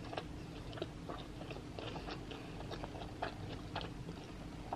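A person chewing a mouthful of sushi with the mouth closed: soft mouth clicks and smacks scattered throughout.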